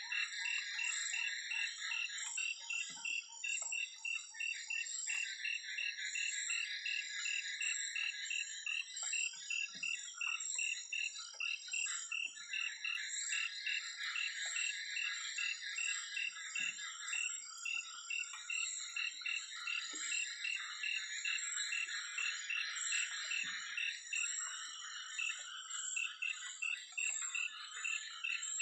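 Night chorus of frogs and insects: a regular pulsed call about three times a second over a dense trilling chorus, with a steady high insect whine.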